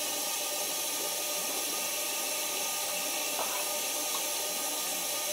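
Steady hiss of a bathroom tap running into the sink, with a faint click about three and a half seconds in as a plastic dental retainer is pried off the teeth.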